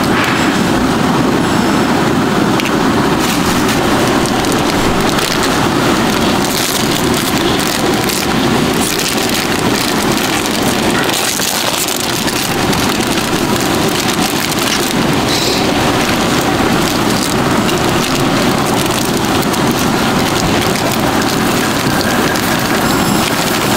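Steady, even hiss of cooking on lit gas burners: oil sizzling in a cast-iron egg pan and a pot of water heating to the boil.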